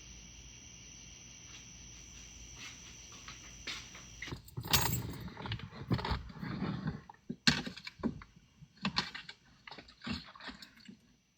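Faint steady hum with a thin high whine, then, about four seconds in, irregular rustling, clicks and knocks of things being handled and moved about.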